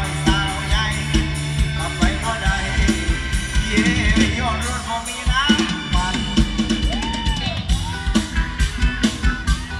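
Mor lam band playing an instrumental passage: a drum kit keeps a fast steady beat, with snare and bass drum, under sustained keyboard and string melody lines.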